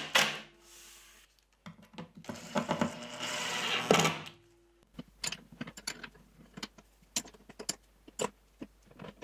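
Cordless driver running in two bursts, driving screws through aluminium rails into plywood: one burst ends just after the start, the other runs from about two to four seconds in. Then come light, irregular metal clicks as a small open-end wrench turns a nut on a steel tensioning block.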